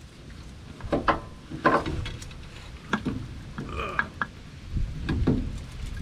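Several separate knocks and clunks of metal tools and parts being handled while the front CV axle is removed from the differential. One clunk, about two-thirds of the way through, rings briefly like struck metal.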